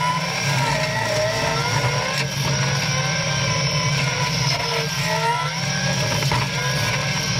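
Caterpillar 297C compact track loader's diesel engine running steadily under load while driving its 5-foot hydraulic brush cutter into thick brush, with a whine above the engine note that rises and falls.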